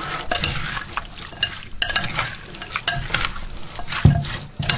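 A metal spoon tossing a dressed salad of jicama sticks, orange segments and red onion in a bowl: wet squelching and crackling of the dressed vegetables, with clicks of the spoon against the bowl and a sharper knock about four seconds in.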